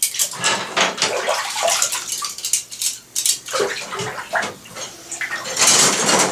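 Water splashing in a bathtub as a handful of metal spoons are washed by hand, the spoons clinking against each other, with a louder splash near the end.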